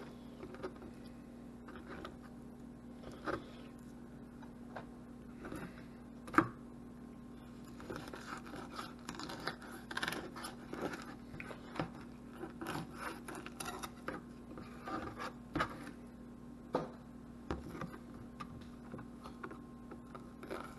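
Fillet knife cutting and scraping through small yellow perch on a plastic cutting board: faint scratching and scraping with scattered light taps, and one sharper knock about six seconds in. A steady low hum sits underneath.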